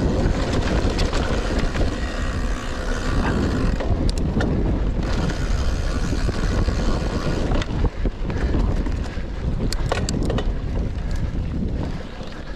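Rockrider XC 900 mountain bike ridden at speed on a forest trail: steady wind rush on the camera microphone over the rumble of the tyres, with scattered sharp clicks and rattles from the bike.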